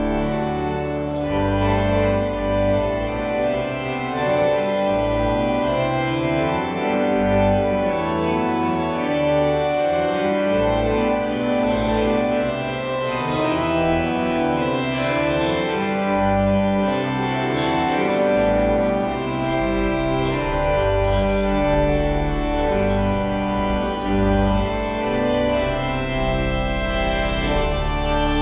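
An organ playing a tune, with held chords over a moving bass line.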